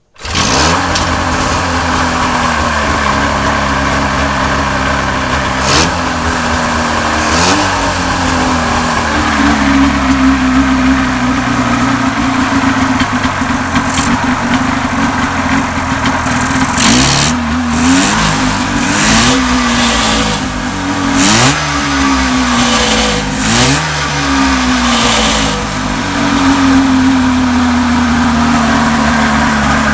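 Dual-carb Rotax 503 two-cylinder two-stroke engine on a test stand catching right away and running. It idles steadily, with a series of quick throttle blips that send the revs sharply up and then falling back.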